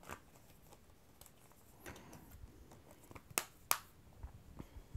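Clear plastic Blu-ray cases being handled: scattered light clicks and rustles, with two sharp clicks close together about three and a half seconds in.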